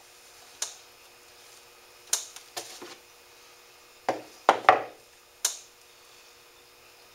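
Scattered sharp knocks and taps on a plywood board and wooden work table as a beaver hide is pulled out and tacked down. There are about seven in all, single ones with a quick cluster of three about four seconds in.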